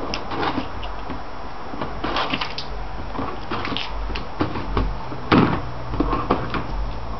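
A Shiba Inu moving about on a parquet floor beside a plastic laundry basket: scattered light clicks and knocks, the loudest a little after five seconds in, over a low steady hum.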